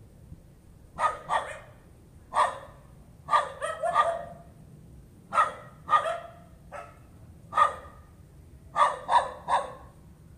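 A dog barking repeatedly in short groups of one to four barks, about thirteen barks in all, starting about a second in. This is the persistent nuisance barking that neighbours complain of.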